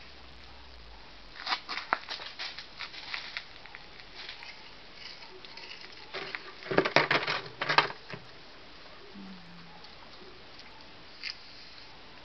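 Small hand tool scratching into fresh cement mortar, cutting crack lines into the wet surface: a run of short gritty scrapes about a second and a half in, a louder cluster around the middle, and one more scrape near the end.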